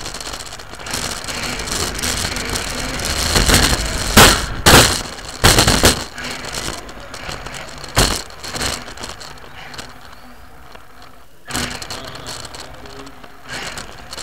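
Radio-controlled car heard from a camera on board: motor and drivetrain noise with rattling as it drives on a hard floor. A cluster of loud knocks comes about four to six seconds in, and another about eight seconds in.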